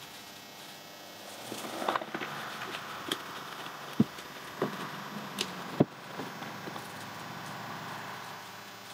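Leafy tree branches rustling as they are gathered and loaded into a truck bed, with a few sharp wooden knocks, the loudest about halfway through.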